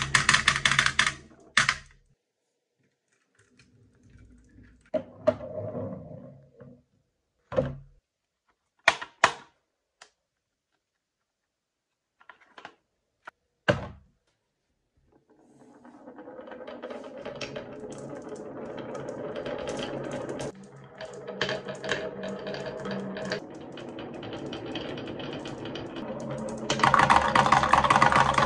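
Glass marbles rolling down a carved wooden zigzag track and clattering into a toy truck's metal flatbed, dense at the start, then a lull with a few separate knocks. From about halfway a rolling rumble of marbles on the wooden track builds, turning into loud, quick clicking near the end as they pile into a plastic dump-truck bed.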